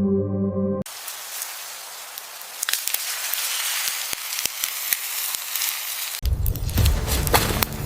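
Fire crackling and hissing, with scattered sharp pops. About six seconds in it cuts to a fuller, deeper crackling blaze. Soft ambient music ends about a second in.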